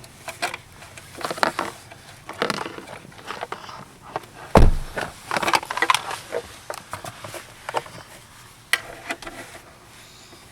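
Car interior parts being handled and pushed back into place: scattered clicks, rustling and scraping, with one heavy thump about halfway through.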